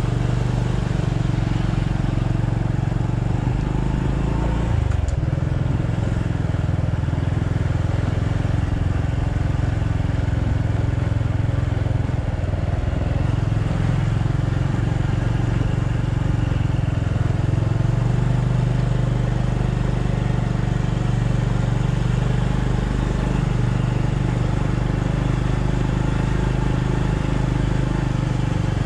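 A motor vehicle's engine running steadily in a low, even drone as it travels along the road.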